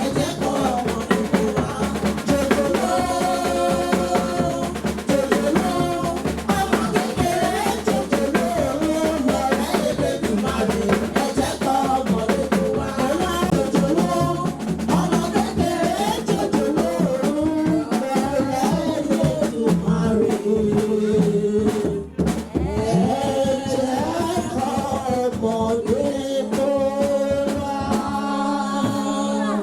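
Music: a sung melody over a drum kit and other instruments, with a brief drop in level about two-thirds of the way through.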